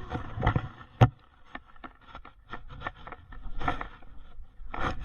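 Irregular knocks, taps and scrapes of close handling noise, with one sharp knock about a second in.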